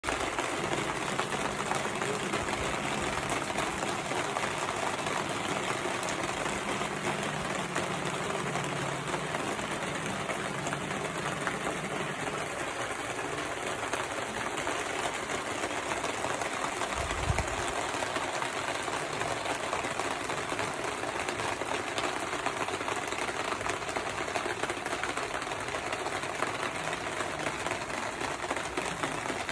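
Steady rain falling, a dense, even patter that runs without letup, with one brief low thump about 17 seconds in.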